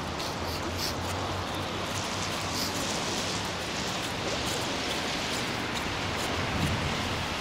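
Steady rushing noise of wind buffeting the camera microphone, with a low rumble and a few faint ticks.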